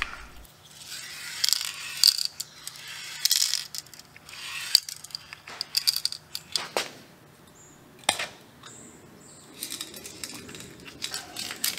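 Eastwood 2K clear aerosol can being handled and activated: scattered sharp clicks and taps as the red activator button is fitted to the pin on the can's base and the can is pressed down on a concrete floor to release the hardener into the clear.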